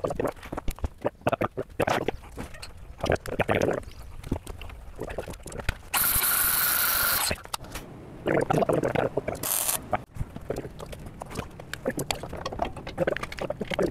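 Metal clanks and ratcheting clicks as a hydraulic porta-power jack and pry bars shift a steel dump bed on a truck frame. About six seconds in, a loud steady crackling hiss lasts over a second, and a shorter one follows near ten seconds: the bed being tack welded to the frame.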